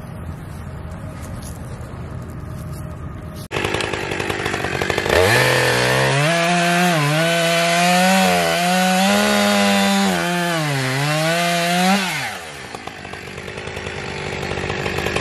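Two-stroke gas chainsaw idling, then revved up about three and a half seconds in and cutting through a dry, barkless log for about seven seconds. Its pitch dips a few times as the engine bogs under load. It drops back to idle once the round falls off.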